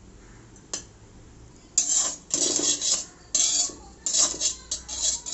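A utensil stirring and scraping rice around a pan, a run of short irregular scrapes starting about two seconds in, after a single click.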